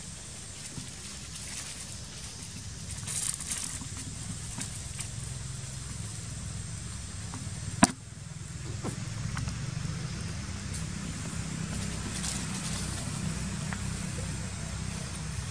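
Steady low outdoor rumble with faint crackling now and then, and a single sharp click about halfway through.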